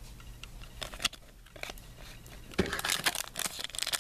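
Faint clicks of trading cards being handled, then from about two and a half seconds in the crinkly plastic-foil wrapper of a 2013 Topps Platinum football card pack crackling as hands work it open.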